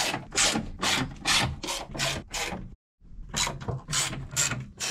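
Hand ratcheting driver backing screws out of a steel battery-case lid: short rasping ratchet strokes, about three a second, with a brief break about three seconds in.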